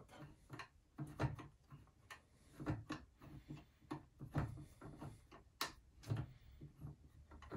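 Light, irregular metal clicks and taps from a wrench working the mounting bolts of a mill's power-feed unit, tightened only roughly for now.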